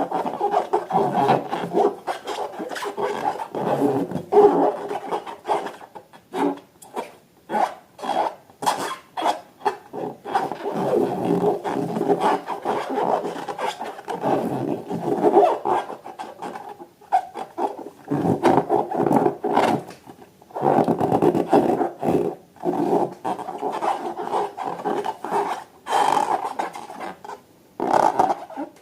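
Rubber balloons rubbed and squeezed by hand, squeaking in quick irregular strokes with a few short pauses.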